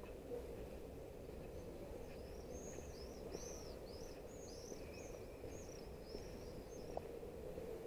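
A songbird sings a quick run of about a dozen high, arching notes, starting about two seconds in and lasting a few seconds, over a steady low hum of town background noise.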